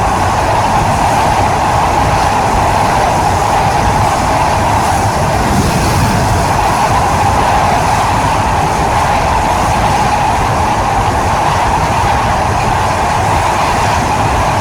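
Train running on rails: a steady, loud, unbroken rumble of wheels and carriages with no pauses or separate knocks.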